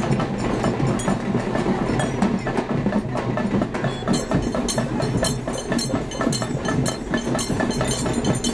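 Rapid, dense clattering of hand-held percussion from a folk dance troupe in a street procession, over the noise of the crowd.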